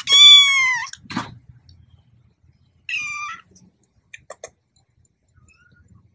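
White kitten meowing twice in a high-pitched voice: a loud call about a second long that dips at the end, then a shorter, fainter meow about three seconds in.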